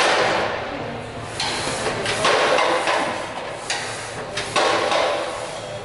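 A Smith machine bar and its weight plates during bench press reps: a few knocks and clanks, each followed by a rush of noise that dies away over about a second.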